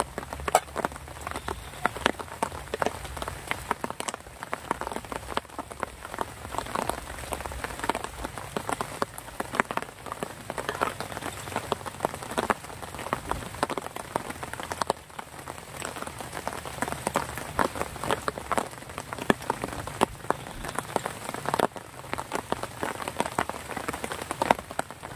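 Steady rain falling, its drops hitting a nearby surface as a dense, irregular stream of small sharp ticks over a continuous hiss.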